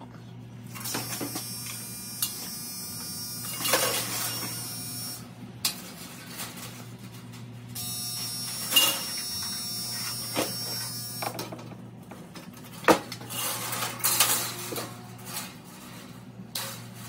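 A coiled dryer heating-element wire rattling and scraping against a metal heater housing as it is stretched and threaded onto ceramic insulators, with scattered sharp metallic clicks of pliers. The loudest click comes about three-quarters of the way through. A steady electrical hum runs underneath.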